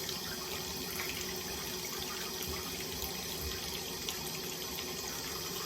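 Steady, even rushing noise with a faint low hum running under it.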